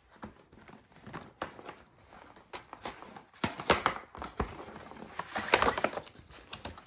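Cardboard box and plastic packaging being handled: scattered rustles, crinkles and light knocks, busiest in the second half, as the box end is opened and the inner tray slid out.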